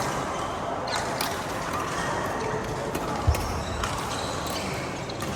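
Badminton play on an indoor court: a few scattered sharp taps over steady hall noise, with one low thump a little over three seconds in, the loudest sound.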